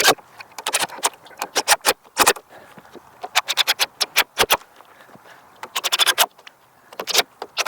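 A series of sharp knocks and clicks in irregular clusters, typical of wooden frame parts being handled and knocked together.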